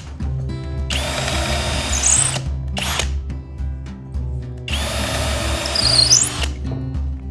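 Power drill running in two bursts of about one and a half to two seconds each, with a sharp click between them, over background music.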